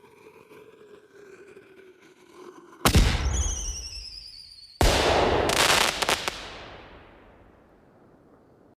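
Weapon sound effect: a faint hum, then a sharp blast with high whistling tones falling away. A second, longer blast follows and fades out slowly, like an explosion.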